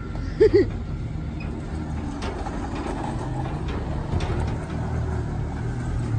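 Pickup truck engine running with a steady low rumble. About half a second in come two quick, loud tones that rise and fall in pitch.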